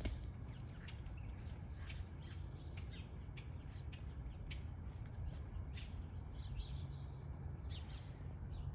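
Birds chirping: many short, scattered high calls over a steady low rumble.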